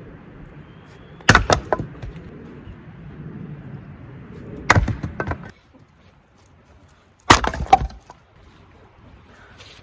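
Firewood being split by hand: three hard strikes about three seconds apart, each followed by a quick couple of cracks as the wood splits apart.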